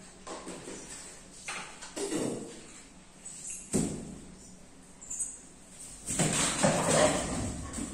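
Scuffling and bumping of a dog and a boy playing on a tiled floor around furniture, with a sharp knock about four seconds in and a louder stretch of scuffling near the end.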